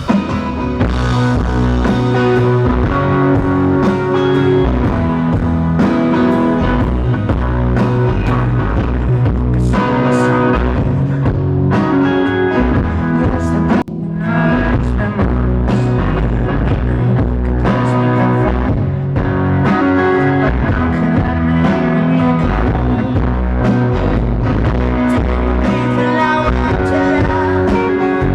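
Rock band playing live: an instrumental passage led by guitar over bass and drums, with a brief break about halfway through before the band comes back in.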